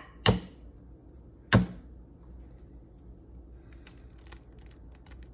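A tiny fairy egg being tapped hard twice to crack it, two sharp knocks a little over a second apart, followed a couple of seconds later by faint crackling of the thin shell as fingers pick it open.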